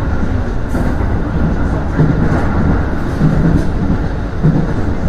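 Aonami Line electric train running between stations, heard from inside the rear cab: a steady rumble of wheels on rail with irregular stronger low pulses.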